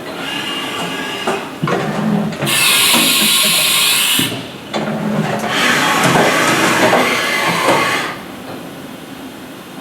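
Haas VF-2 CNC vertical mill homing its axes and changing tools: motor whine at first, then a loud hiss lasting about two seconds, followed by a few seconds of mechanical clatter that eases to a quieter steady running sound near the end.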